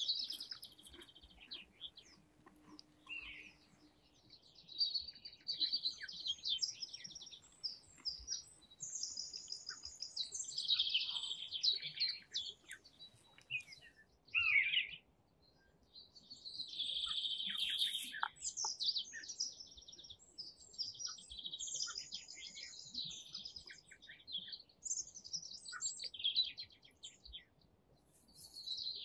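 Small songbirds singing: a busy run of high chirps and trills, phrase after phrase, with short gaps between.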